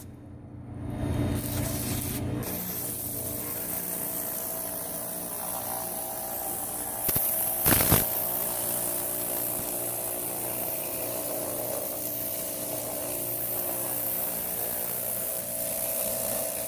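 Electric pressure washer running, its pump holding a steady hum under the hiss of the water jet spraying against plastic truck-body doors to test the door seals. The spray gets louder for about a second around seven seconds in.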